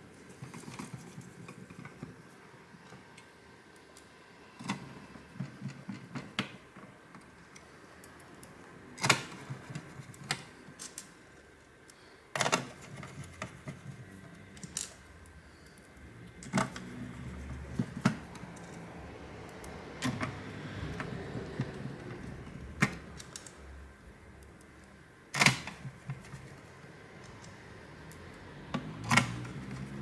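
Small screws being driven by hand into a graphics card's metal backplate and cooler with a screwdriver, fitted loosely at first: a string of sharp clicks and taps from the tool and screws against the metal, with soft handling rustle between them.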